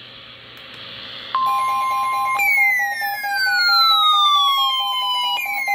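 Emergency Alert System attention signal for a tornado warning: a steady two-tone alert beep comes in about a second and a half in after a rising hiss. A siren wail falling in pitch joins it a second later and starts over near the end.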